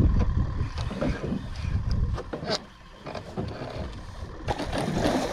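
Wind buffeting the microphone on an open fishing boat, with a few light clicks as a spinning rod and reel are handled close by, and a brief rush of noise near the end.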